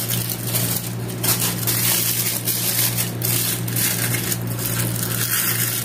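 Metallic foil wrapping paper crinkling and crackling as hands crumple and press it around a chocolate Easter egg shell, in quick irregular crackles over a steady low hum.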